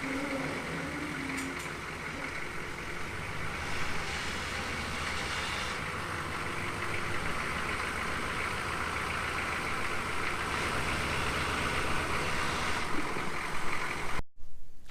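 An engine running steadily, cutting off suddenly shortly before the end.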